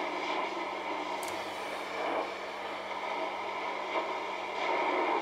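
Hammarlund HQ-100 shortwave receiver's loudspeaker giving out hiss and static between stations as the main tuning knob is turned, with a steady low hum underneath.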